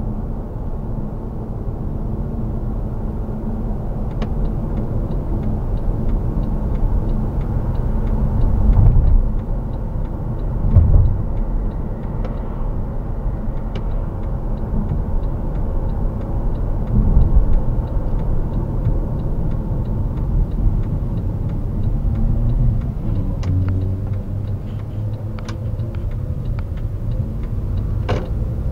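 Mercedes-Benz W212 E-Class on the move, heard from inside the cabin: a steady low rumble of road and engine noise, with the air-conditioning fan running on its lowest setting. It swells a little a few times, and faint light ticks come and go on top.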